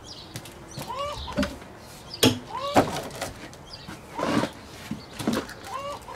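Oak logs knocking and scraping as they are levered and rolled with a hooked log tool, with two sharp wooden knocks a little over two seconds in.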